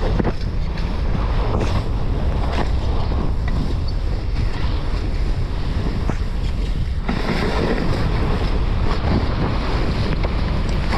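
Wind buffeting the microphone over the scraping hiss of a snowtrike's skis sliding fast down a packed-snow track. There are a few short knocks from bumps in the first seconds, and the sliding noise grows fuller about seven seconds in.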